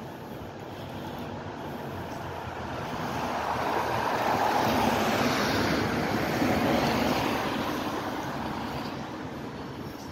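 A car driving past on a wet street: the rush of its tyres swells to a peak about halfway through, then fades away.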